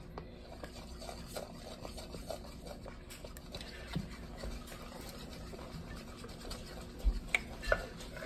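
Quiet handling noises from a small plastic bottle being worked over a plastic bowl: soft scratches and light clicks, with one soft knock about halfway and a few sharper taps near the end.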